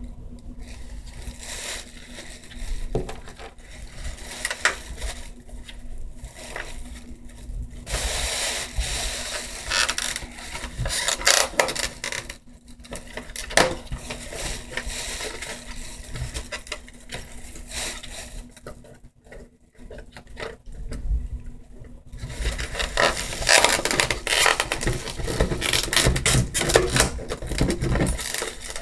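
Hands working with small nail-kit items: irregular clicks, taps and scraping, busier in two stretches, one about a third of the way in and one near the end.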